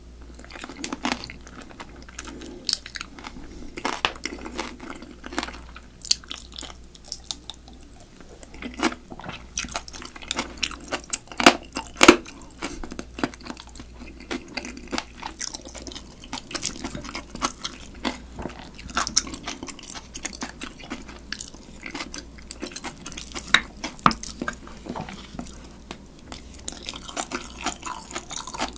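Close-miked chewing of spicy marinated crab (yangnyeom-gejang), crunching through the crab shell. Irregular crisp crunches and mouth clicks come throughout, with the loudest crunch about twelve seconds in.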